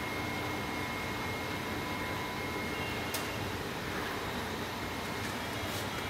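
Industrial cooling unit (chiller) running: a steady mechanical hum and whirr with faint steady whining tones, and a single short click about three seconds in.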